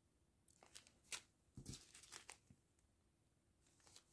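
Faint crinkling of a small clear plastic bag of diamond-painting drills being handled: a few short rustles in the first half, a near-silent pause, then another rustle near the end.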